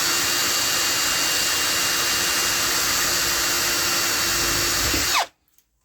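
Electric drill running steadily at full speed while drilling a hole for a blind rivet, then slowing with a falling whine and stopping about five seconds in.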